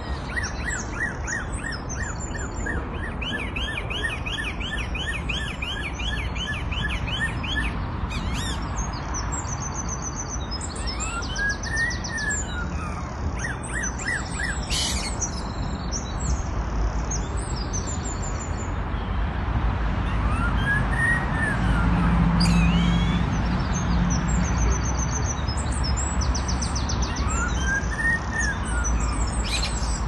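A songbird singing a busy song of rapid chirps and trills, with a slow whistle that rises and falls like a police siren wail three times, in imitation of a siren. A low steady rumble runs underneath.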